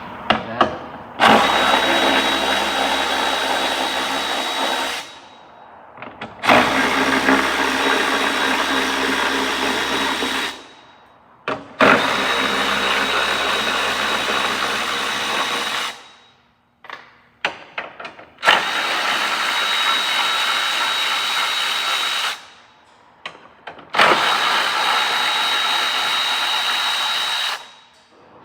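Power drill running in five steady bursts of three to four seconds each, starting and stopping abruptly, as bolts are spun out.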